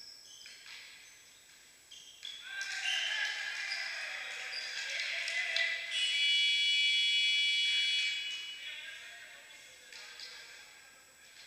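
Voices shouting, with a few sharp ball hits around two seconds in, during a volleyball rally in an echoing sports hall. About six seconds in, a referee's whistle gives one long, shrill, steady blast lasting about two seconds, ending the rally.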